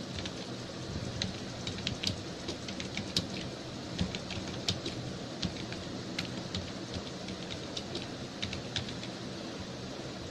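Typing on a computer keyboard: irregular key clicks, a few a second, over a steady low hum and hiss.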